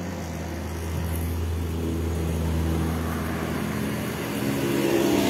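Road traffic passing below: motor vehicle engines running by as a steady low drone, swelling about a second in and again near the end as vehicles approach.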